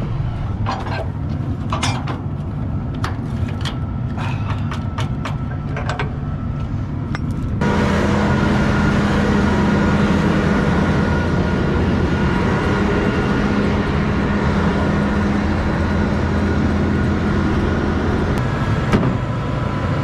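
A farm vehicle's engine running steadily on the road, with scattered light clicks over the first several seconds. About a third of the way in, the sound abruptly gets louder and fuller, with a strong steady hum.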